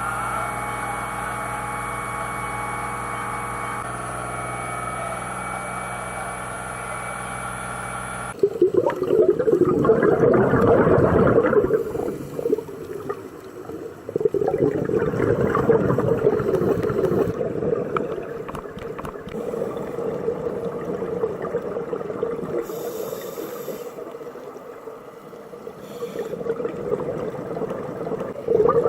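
A scuba diver breathing underwater through a regulator: loud gurgling rushes of exhaled bubbles, about three of them, with quieter breaths between. Before this, a steady hum with several held tones cuts off abruptly about eight seconds in.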